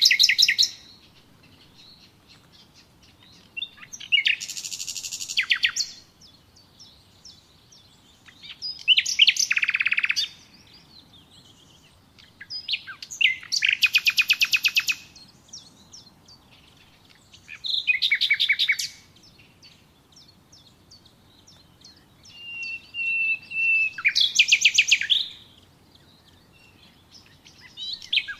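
Songbird singing a repeated series of short phrases, each a quick run of chirps and fast trills lasting one to two seconds, with pauses of a few seconds between phrases.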